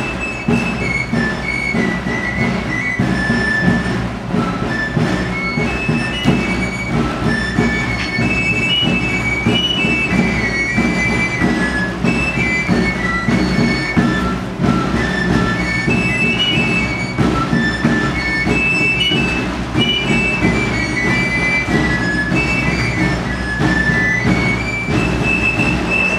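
Galoubet, the Provençal three-hole pipe, playing a quick, high dance tune in repeating phrases over the steady beat of a tambourin drum.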